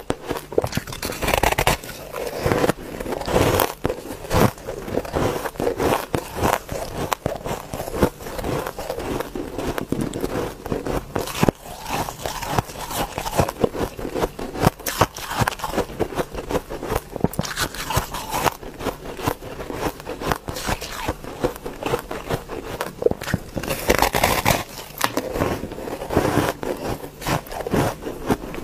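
Crunching and chewing a large chunk of frosty, layered coloured ice, a dense run of crackling crunches close to the microphone. Louder bites come about a second in and again near the end.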